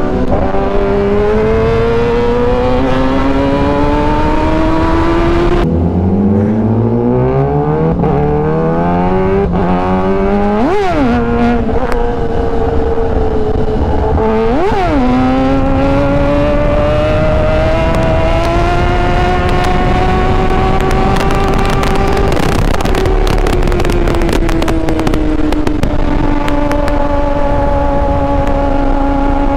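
Kawasaki Ninja ZX-10R's inline-four engine heard from the rider's seat, pulling up through the gears: its pitch climbs, drops sharply at two quick upshifts midway, climbs steadily again, then falls away as the bike slows.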